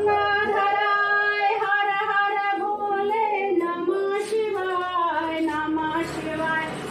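A woman's voice singing a devotional song in long, drawn-out notes that bend slowly up and down.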